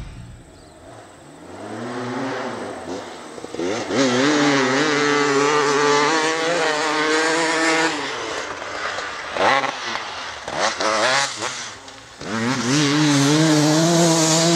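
KTM 300 EXC two-stroke enduro motorcycle engine revving, its pitch rising and falling, with a burst of quick throttle blips past the middle, then held at a steady high rev near the end.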